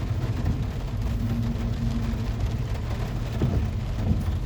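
Steady low rumble of a van driving, heard from inside the cab, with the hiss of rain on the vehicle.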